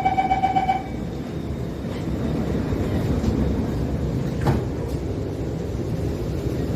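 Door-closing warning beeps of an SMRT R151 metro train ending about a second in, then the steady low rumble of the train heard from inside the carriage, with a single click about four and a half seconds in.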